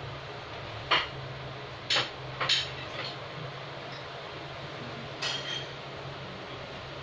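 Sharp clinking taps: single ones about one and two seconds in, another just after, then a softer short rattle about five seconds in, over a steady low hum.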